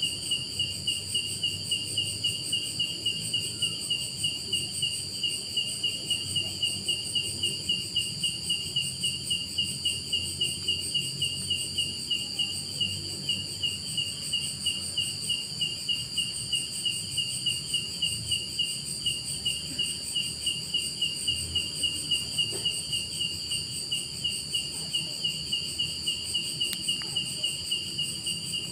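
Night insects: a cricket chirping in an even rhythm of about three chirps a second, over a steady high-pitched trilling from other insects.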